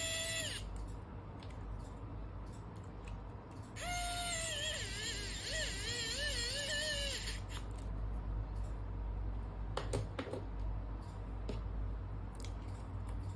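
Pen-style electric precision screwdriver driving small M2 screws into a plastic servo bracket. Its motor whine cuts off about half a second in, then runs again for about three and a half seconds with its pitch wavering up and down. A few light clicks of plastic parts being handled follow.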